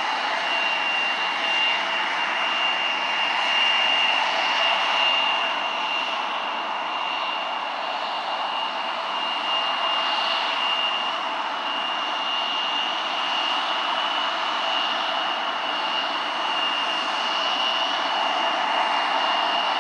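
Embraer E170's GE CF34 turbofan engines running at taxi power: a steady broad rush with a high, constant whine as the jet rolls slowly along the taxiway.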